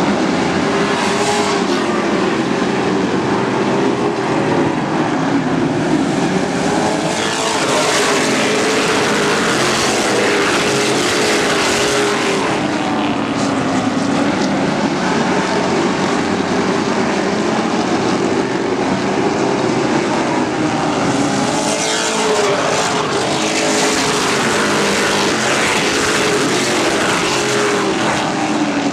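A pack of Pro Truck race trucks running at racing speed, their engines loud and continuous, the pitch rising and falling as they go around the track. The sound swells twice as the pack sweeps past close by.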